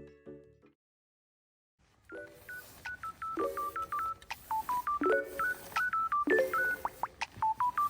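Background music: one piece ends, about a second of silence follows, then a new track starts with short beeping synth notes that step in pitch over a repeating chord pattern.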